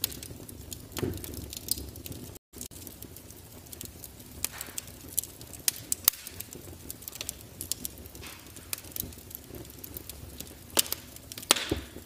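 Wood fire burning in a glass-fronted fireplace insert, crackling with irregular sharp pops and snaps. The sound cuts out completely for a split second about two and a half seconds in.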